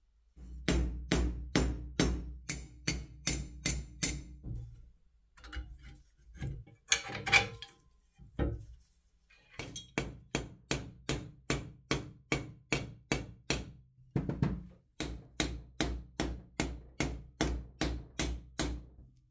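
A hammer peening steel rivets that join the plow's steel frame parts: sharp metal-on-metal blows in runs of about three a second, with short pauses between runs.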